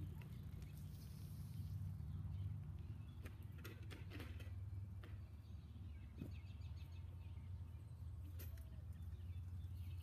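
Quiet outdoor ambience: a steady low rumble with a few faint bird chirps and scattered soft ticks.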